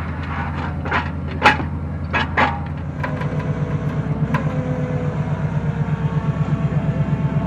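A vehicle engine running steadily, with a few sharp metallic knocks about one to two and a half seconds in, the loudest about a second and a half in. From about three seconds in, the engine settles into a regular pulsing beat of about six a second.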